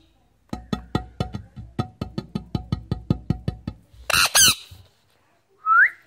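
Indian ringneck parakeet giving two loud, shrill screeches just after four seconds in. Before them comes a rapid run of about twenty sharp clicks, roughly six a second. A short rising whistle follows near the end.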